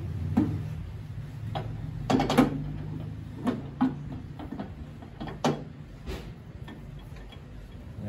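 Glass microwave turntable plate and roller ring being set into the oven cavity: a few scattered light clicks and knocks, the loudest about two seconds in, over a low steady hum.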